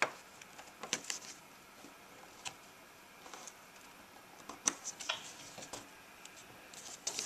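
Cardstock being handled and pressed onto a card base: scattered light taps and soft paper rustles, with a sharp click right at the start.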